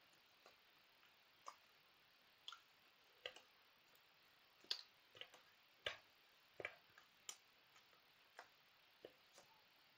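Near silence: room tone broken by faint, irregular clicks and ticks, about a dozen of them, loudest about five to six seconds in.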